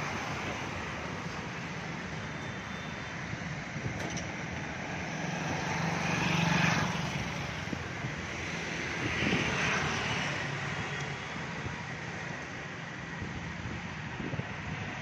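Road traffic at a busy intersection: a steady wash of engine and tyre noise, with two vehicles passing close and swelling louder about six and a half seconds in and again about nine and a half seconds in.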